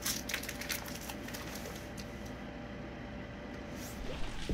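Steady background hum of a small room, with a few faint clicks in the first second and rustling handling noise near the end.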